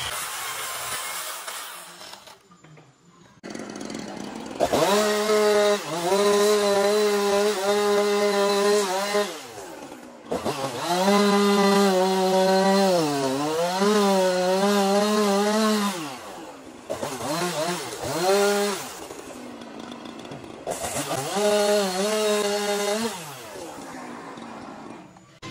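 Small handheld chainsaw cutting wood in several separate runs. The motor revs up at the start of each run, holds a steady pitch, sags briefly under load about halfway through, then winds down between cuts.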